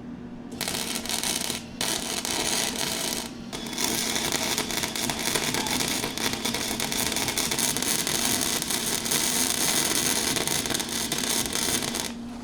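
Flux-cored wire-feed welder arc crackling and sputtering in three runs, with two short stops about two and three and a half seconds in. A steady low hum runs underneath.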